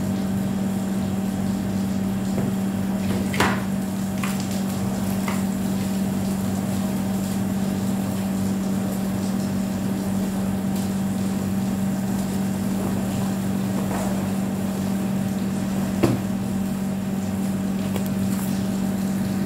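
Electric water pump motor humming steadily, pumping water through a hose into the pool. A few light knocks and taps come about three and a half, four, five and sixteen seconds in.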